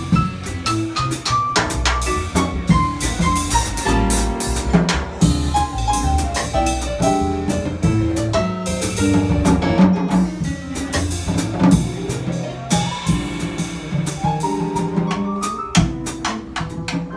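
A live jazz trio of piano, upright bass and drum kit playing, with busy drumming over piano lines and walking bass. The piano plays several descending phrases and rising runs near the end.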